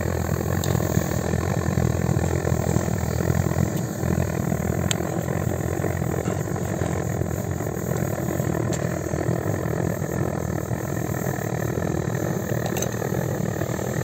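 Camp gas burner running steadily under a pot of soup: a continuous low rush of flame.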